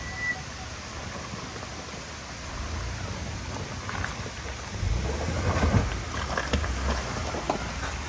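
Ford F-150 pickup creeping over a rocky, washed-out trail: a low engine rumble with tyres crunching and crackling on loose rocks and gravel. It grows louder about five seconds in as the truck comes close.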